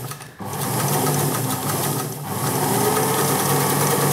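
Antique Bernina KL 117 sewing machine stitching through fabric, driven by its electric motor, which was cleaned, oiled and rebuilt after decades out of use. It pauses briefly just after the start, then runs on steadily with a slight slowdown about two seconds in.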